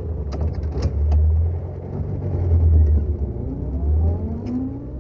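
Car engine sound effect: a car driving off with a steady low engine rumble, its pitch rising as it accelerates near the end. There are a couple of sharp clicks within the first second.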